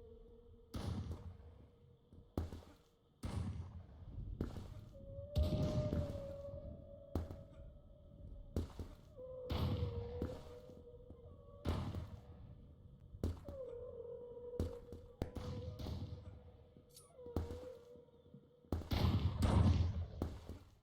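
Unexplained building noise: a long, wavering whale-like moan that drifts slightly in pitch and breaks off now and then, over irregular dull thuds about every one to two seconds.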